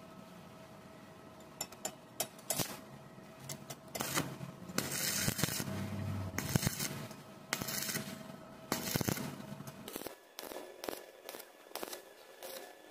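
Stick-welding arc from an E6013 electrode, crackling and sizzling in irregular bursts that start about a second and a half in.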